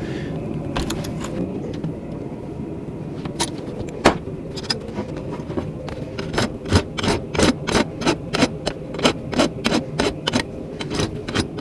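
An old farrier's rasp worked in quick, regular strokes over hot steel, about three strokes a second, starting about six seconds in and taking burrs and sharp edges off the forged piece. A steady low rumble runs underneath.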